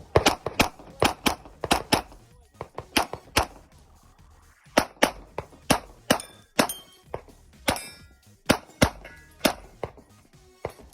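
Strings of rapid pistol shots from a Smith & Wesson M&P 2.0, mixed with the metallic clang and ring of hit steel targets. There is a pause of about a second around four seconds in, then the firing resumes.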